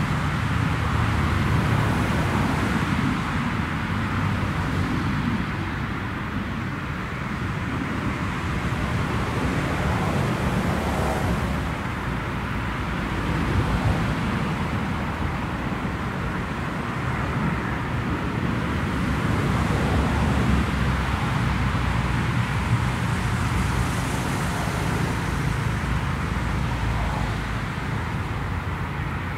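Steady distant rumble of a twin-engine Embraer E-Jet regional airliner's engines as it rolls out along the runway after landing.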